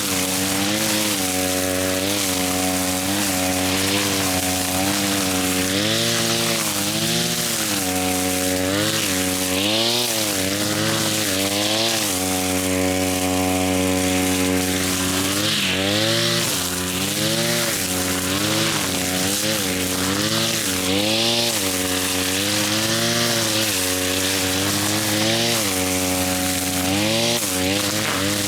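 A small petrol grass cutter's engine running hard while cutting thick grass. Its pitch keeps dipping and recovering about once a second as the engine bogs under the load and picks up again, with a few steadier seconds about halfway through.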